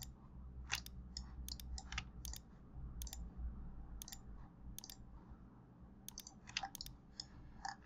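Computer mouse button clicking in a quiet, irregular string of roughly two clicks a second, with pauses, as points are picked one by one.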